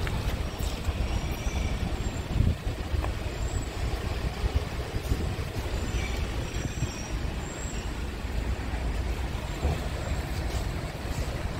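Steady low rumble of a truck's diesel engine running, heard up close beside the truck.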